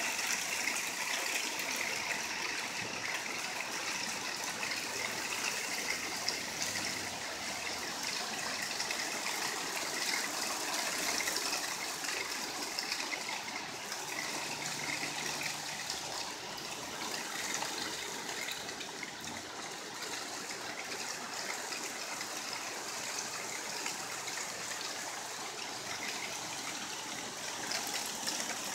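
Hail storm: hailstones falling steadily on a wooden deck and yard, a dense, even hiss of countless small hits.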